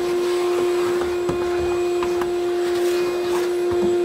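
Shop vacuum running with a steady, even hum as its hose sucks dust out of the inside of a wooden cabinet, with a few faint clicks along the way.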